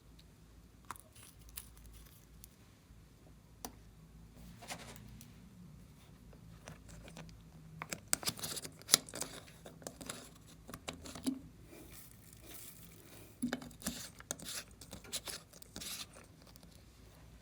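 Glossy slime being worked by hand, making sticky crackles and pops. There are a few scattered clicks at first, then a busy run of crackling through the second half.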